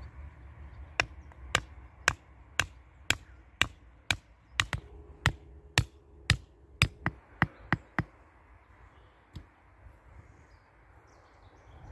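Claw hammer striking the top of a wooden stake, driving it into the soil: a run of about fifteen sharp knocks, roughly two a second, coming a little faster near the end.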